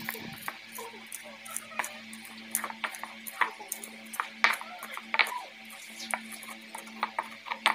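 Stone pestle pounding and grinding green chillies in a stone mortar: irregular sharp knocks of stone on stone, roughly one or two a second.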